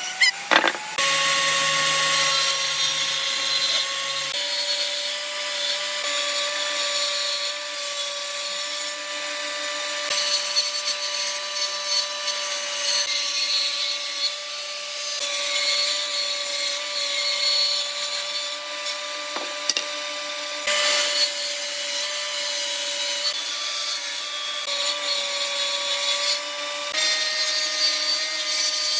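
Electric power tool running steadily while cutting or sanding wood: a constant motor whine over a dense rasping hiss, its pitch dipping slightly now and then as the load changes.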